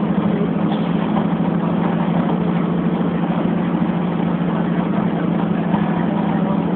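Steady engine hum and road noise inside the cab of a split-windscreen Volkswagen Kombi van driving along a dirt road; its rear-mounted air-cooled flat-four drones at an even pitch.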